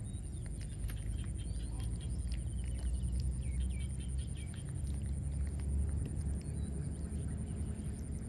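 Wind rumbling on the microphone outdoors, with faint high chirps between about one and four seconds in and again briefly near the end, and a thin steady high-pitched whine underneath.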